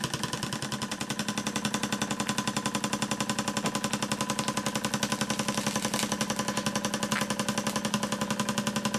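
Wylie Harris toy steam engine running, a rapid even beat of about eight strokes a second over a steady hum.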